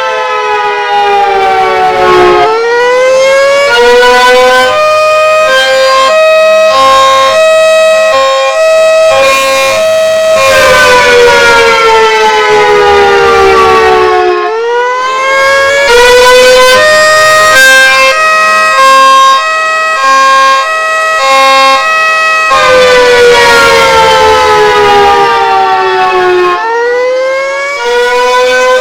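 A loud siren runs through a repeating cycle of tones. It falls slowly in pitch for about four seconds, sweeps back up, then alternates back and forth between two pitches in a hi-lo pattern for several seconds before falling again.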